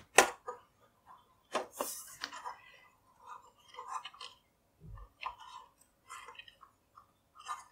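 Sharp plastic clicks and light scraping as the NAS enclosure's front LCD and status-LED panel is prised free by its snap-fit tab. Several clicks come in the first couple of seconds, followed by lighter tapping and rustling of the parts being handled.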